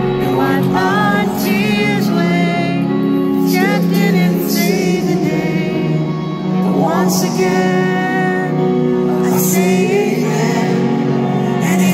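Live Christian band playing a slow worship song, a male lead singer singing over sustained band chords, heard from the audience.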